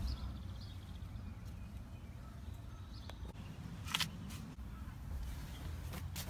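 Faint low background rumble with a few light clicks, the sharpest about four seconds in.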